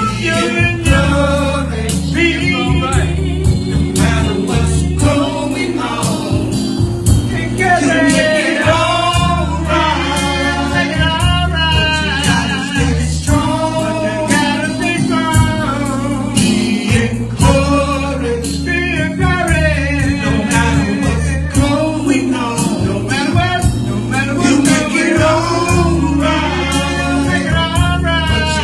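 Live gospel song: male voices singing over a band, with sustained bass notes and a steady beat.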